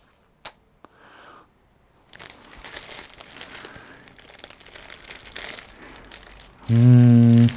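Clear plastic bag crinkling and rustling as it is handled around a powerline adapter, starting about two seconds in after a single click. Near the end a man's voice holds one steady note for about a second, louder than the rustling.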